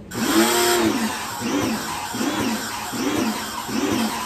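Kawasaki ACK 302 electric pressure washer running, its jet hissing against the scooter, over a hum that rises and falls in pitch again and again; a short dip at the very start, then it runs loud and steady.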